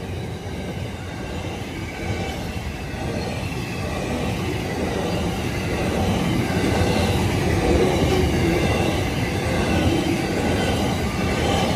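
A freight train's loaded container wagons rolling past close by on steel rails, a steady rumble and clatter of wheels that grows gradually louder.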